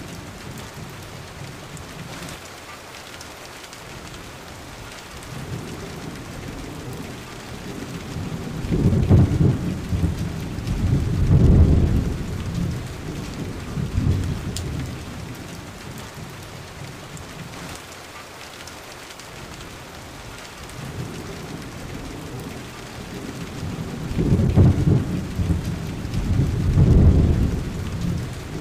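Thunderstorm: steady rain with rolling thunder. Long, low rumbles swell and fade twice, about a third of the way in and again near the end.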